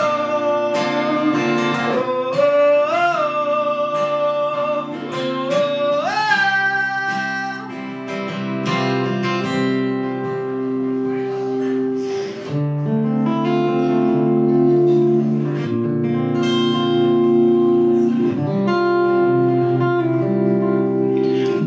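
Acoustic guitar strummed and picked in slow chords, with a sung melody of long, gliding notes over it for the first several seconds, after which the guitar goes on alone.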